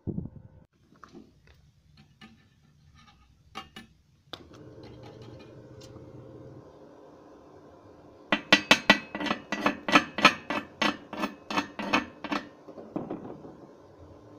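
A fast, even run of sharp metal-on-metal strikes, about four a second for some four seconds from about eight seconds in: a chipping hammer knocking slag off a fresh arc weld on steel angle iron. Before it come a few scattered light knocks and clinks over a low steady hum.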